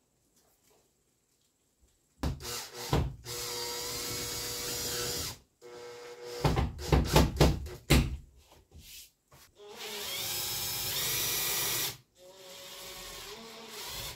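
A cordless drill-driver drives screws into a pink gypsum board panel. It runs in three bursts of motor whine that shifts in pitch as each screw goes in. There are a few sharp knocks between the first two runs.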